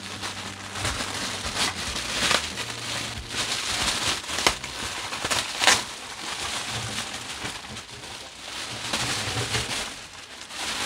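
Clear plastic wrapping crinkling and rustling as a wrapped cushion is handled and pulled about in a plastic bag, with several sharper crackles along the way.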